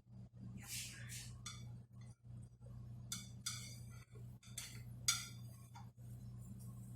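A spatula scraping and clinking against a frying pan in a string of short strokes, over a steady low hum.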